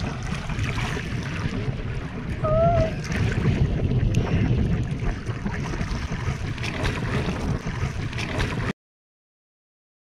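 Wind buffeting the microphone over moving water, with a brief pitched call-like sound a couple of seconds in. The sound cuts off abruptly near the end.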